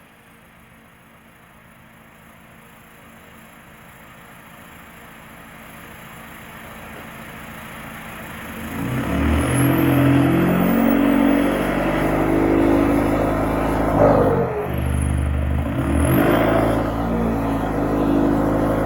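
2006 Volkswagen Jetta TDI's 2.0-litre four-cylinder BRM turbo-diesel running: faint at first and slowly growing louder, then loud from about nine seconds in, with quick swings in engine pitch a few times near the end.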